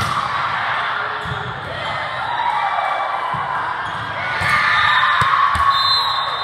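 Volleyball rally in a large sports hall: several sharp thuds of the ball being struck, over a steady din of players' and spectators' voices that swells into shouting near the end as the point is won.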